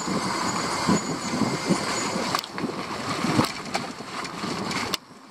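Riding noise from a vehicle rolling down a rough concrete lane: wind buffeting and hiss, with a low irregular rumble and a few sharp rattles of the front rack. The noise drops off suddenly near the end.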